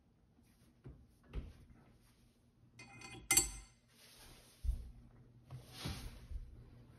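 Heated steel oil pump drive gear dropped onto a 2.0 FSI crankshaft snout: a sharp metallic clink with brief ringing about three seconds in as it lands and seats. Dull thumps of handling come before it, and short rustling noises after.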